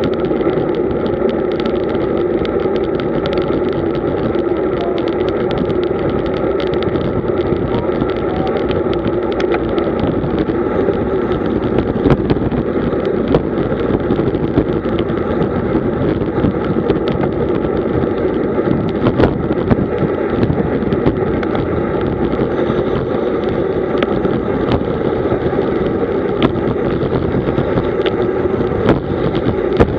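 Steady wind and road rush on a bike-mounted camera's microphone as a road bicycle rolls along at about 40 km/h, with scattered small clicks and knocks through it.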